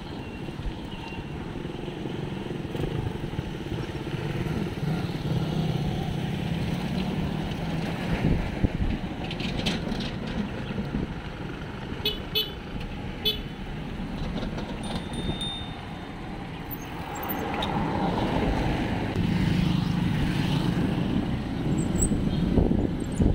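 Road traffic going by: small engines of motorized tricycles and a motorcycle and a passing car, a steady low rumble that swells and fades.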